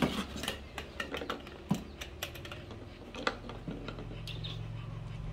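A quick, irregular run of light clicks and taps: small plastic toys knocking against a tabletop as a baby macaque handles them. The clicks stop after about three and a half seconds, leaving a steady low hum.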